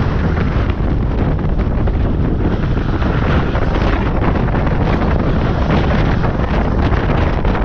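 Steady wind rushing over an exposed camera microphone riding on a lowboy trailer's load, over the low running noise of the Peterbilt truck and trailer under way.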